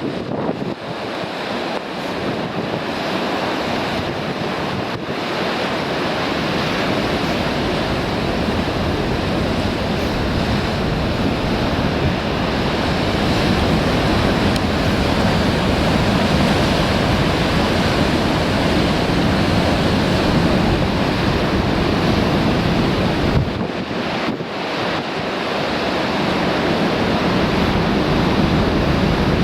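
Surf pounding a rocky shore in a strong wind, a continuous rushing wash, with wind buffeting the microphone. The low rumble briefly drops away about three-quarters of the way through, then returns.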